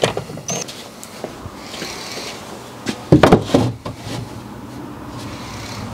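Knocks and rattles of a shelf being set onto plastic wall brackets, loudest in a short cluster about three seconds in.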